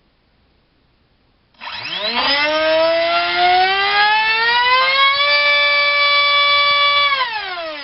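Assault 450 3800 kV brushless helicopter motor spinning a 4.5x4.5 propeller on a thrust stand, run on a 3-cell pack: about a second and a half in it starts with a rising whine, climbs gradually towards full throttle, holds a steady high whine, then winds down near the end. A noisy motor.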